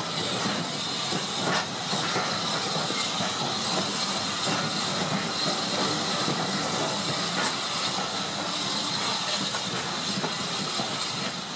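Diesel multiple unit standing at idle: a steady hiss over a low rumble.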